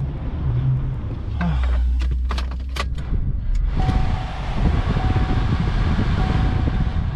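Car sounds: a low engine rumble with a few sharp clicks about two seconds in, then a steady rushing noise with a thin electronic tone that sounds on and off.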